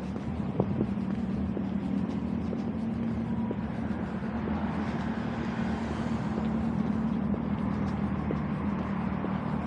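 City street ambience: a steady hum of road traffic with a constant low drone, and a few faint clicks.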